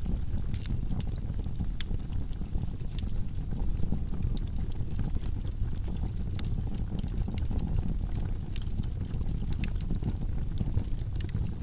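Log fire burning in a fireplace: a steady low rumble of flames with irregular sharp crackles and pops from the burning wood.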